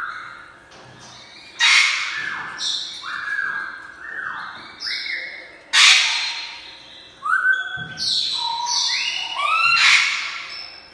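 African grey parrot calling: a run of short sliding whistles, some rising and some falling, broken by about four loud harsh squawks.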